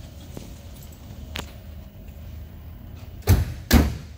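A door on a 1967 Chevrolet Chevelle SS shut with two heavy thumps about half a second apart, near the end, over a low steady rumble.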